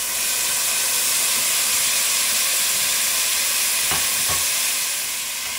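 Milk poured into hot ghee and roasted semolina with sugar, sizzling and hissing steadily as it boils up in the pot. Two short knocks come about four seconds in.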